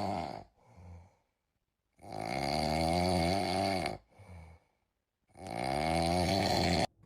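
Snoring: two long, wavering snores of about two seconds each, each one preceded by a short, softer breath.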